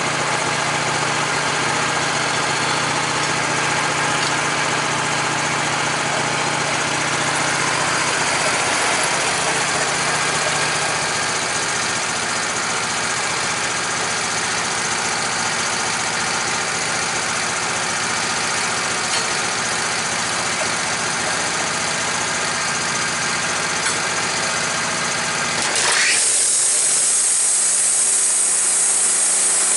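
Wood-Mizer LT15 portable band sawmill's gasoline engine running steadily. About 26 seconds in the sound changes to a louder, steady high hiss as the blade is engaged for the cut.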